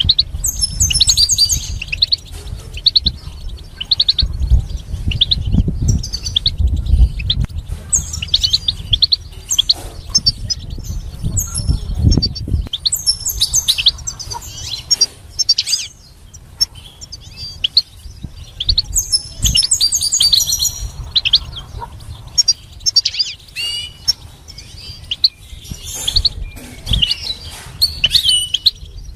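Caged goldfinch singing: fast, high twittering song phrases with trills and chips, in bursts broken by short pauses. A low rumble runs underneath through roughly the first half.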